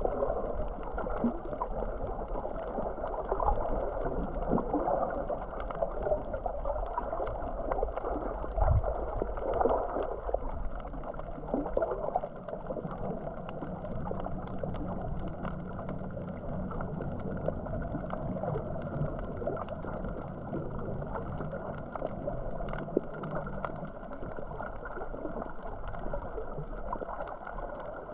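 Muffled underwater sound picked up by a GoPro while snorkeling: water sloshing and gurgling around the camera, with a steady low hum joining about twelve seconds in.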